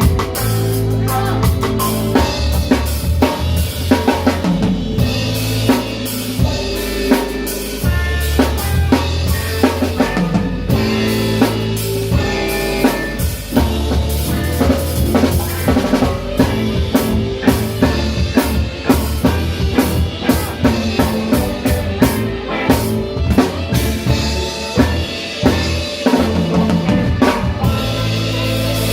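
Live reggae band playing, with the drum kit up close and loudest: bass drum, snare and rimshots hit rapidly over a steady bass line.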